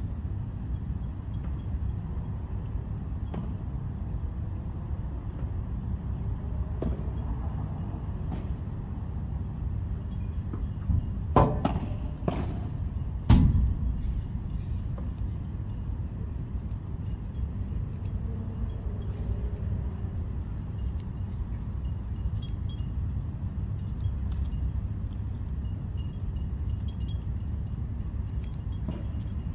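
Padel ball struck by rackets: three or four sharp pops in quick succession a little past the middle, with a few fainter knocks before them. Under them is a steady low background noise and a continuous high whine.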